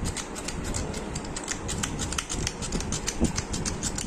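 Salad being tossed and mixed in a bowl: rapid, irregular clicking and rattling, several clicks a second.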